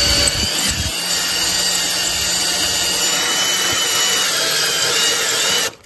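Makita cordless drill spinning a small diamond hole saw bit against a coarse (about 60 grit) sharpening stone: a steady grinding whir with a thin motor whine, dressing the bit's glazed diamond edge. It cuts off just before the end.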